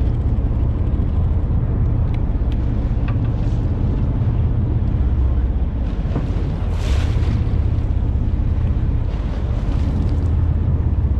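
Steady low rumble of a charter boat's engine idling while the boat drifts, with water washing against the hull. A short splashing hiss comes about seven seconds in.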